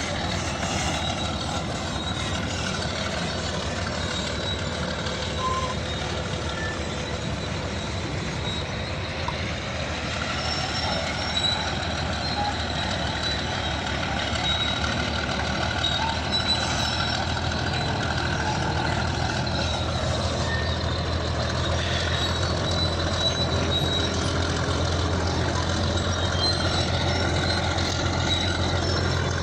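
Bulldozer's diesel engine running steadily, its low drone growing louder past the halfway point.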